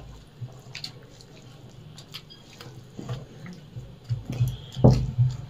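People eating rice and egg curry by hand from steel plates: scattered small wet clicks and smacks of fingers mixing rice and of chewing, with a louder thump about five seconds in.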